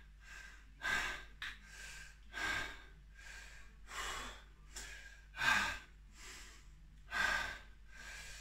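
A man breathing hard, with about six sharp, forceful breaths roughly every second and a half, the loudest a little past halfway. He is winded mid-set of heavy dumbbell shoulder presses.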